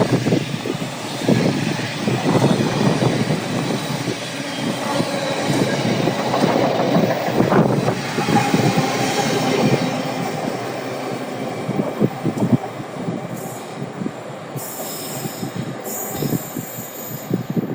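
Wagons of a diesel-hauled engineering train rolling past at speed, wheels clattering over rail joints in a quick rhythm. A thin wheel squeal rises about eight seconds in, and the clatter slowly fades as the train draws away.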